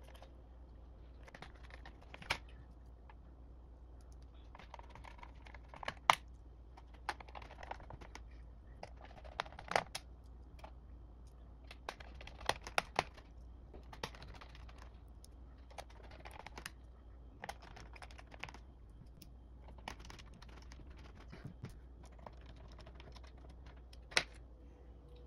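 Small screws being set and driven with a screwdriver into a laptop's plastic bottom case: irregular light clicks, taps and brief scrapes, with a few sharper knocks.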